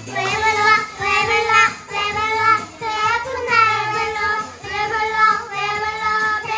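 Young children singing together over a recorded backing track, in phrases about a second long. The singing comes in right at the start.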